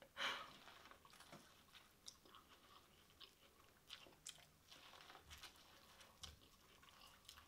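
A person biting and chewing boiled corn on the cob: faint crunchy bites and chewing clicks, with one slightly louder bite just after the start.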